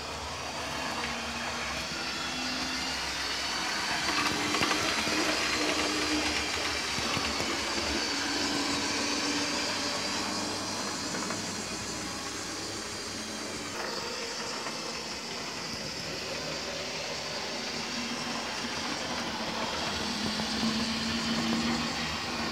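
Model trains running on a layout: a steady mechanical running sound of small electric motors and wheels on track, with a low humming note that comes and goes. Among them is a model Class 47 diesel hauling an express.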